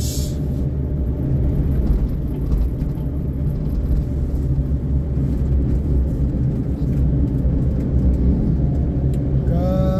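Steady engine and road rumble inside the cabin of a Suzuki Karimun Kotak while it is being driven.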